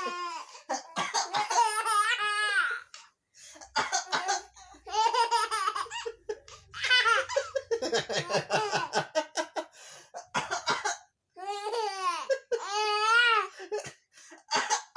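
A baby laughing and giggling in repeated bursts, set off by a man coughing in the gaps between them.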